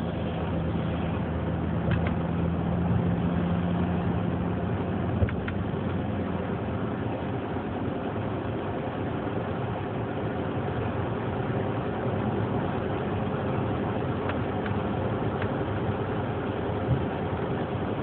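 Engine and tyre noise of a moving car heard inside its cabin: a steady rumble and road hiss, with a low hum in the first few seconds and a few small clicks or knocks.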